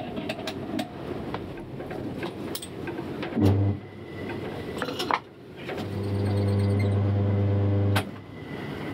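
Metal clinks and knocks. Then a wood lathe's electric motor hums twice, briefly about three and a half seconds in and again steadily for about two seconds near the end, cutting off sharply.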